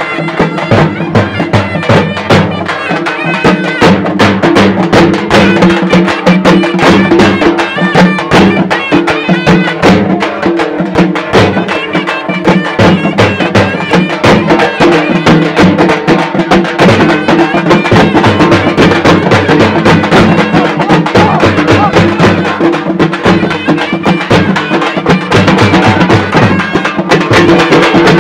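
Traditional procession music: fast, dense drumming with a wind instrument holding steady, droning notes over it.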